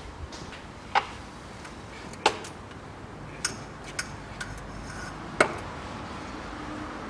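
Irregular sharp clicks and knocks of hard objects being handled during work under a car's bonnet, about six over several seconds, the loudest one about five seconds in.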